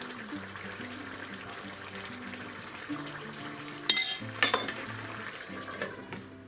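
Broth simmering in a frying pan while a metal spoon stirs it, then two sharp clinks of the spoon against dishes about four seconds in, and a softer knock as the glass lid goes onto the pan near the end.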